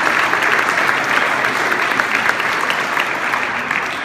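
Audience applauding, the clapping dense and steady, then beginning to taper off near the end.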